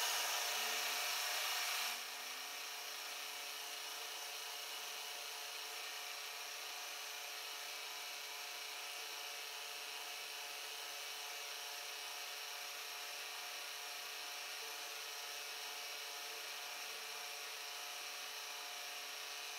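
Milling machine spindle running steadily with a whine, while a 1/16-inch end mill takes light cleanup cuts along the walls of a cast pocket. A little louder for the first couple of seconds, then even.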